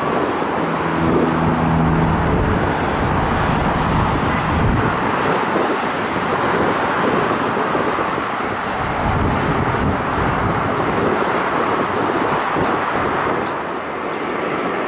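Jet airliner on final approach to land, its engines giving a steady, loud rushing roar with no clear build or fade.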